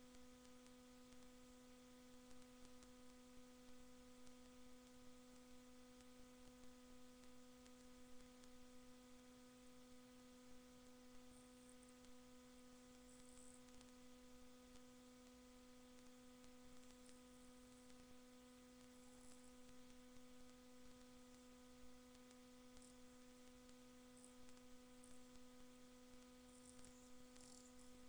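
Near silence: a faint, steady electrical hum with its overtones over hiss.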